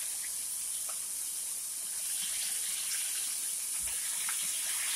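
Catfish pieces deep-frying in hot oil in a pot: a steady sizzling hiss with a few faint scattered pops.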